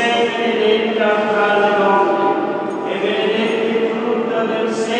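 Choir singing a slow, chant-like hymn, the voices holding long notes that move to a new pitch about every second.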